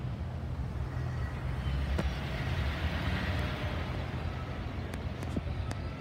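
Low, steady rumble of a car moving slowly in traffic, heard from inside the cabin, with a hiss of tyres or a passing vehicle swelling and fading in the middle.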